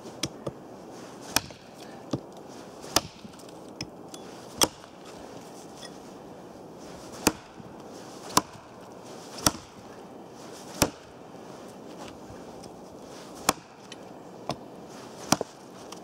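Hatchet chopping a fallen birch branch: about a dozen sharp strikes at an uneven pace, some pausing a couple of seconds between blows.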